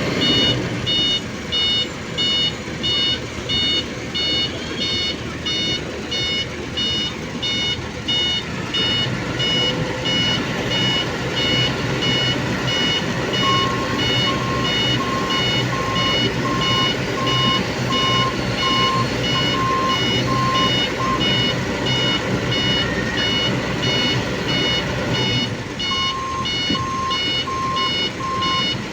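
200-class excavator travelling, its travel alarm beeping in a steady, even rhythm over the diesel engine. A second, lower beep joins about halfway through, stops, and comes back near the end.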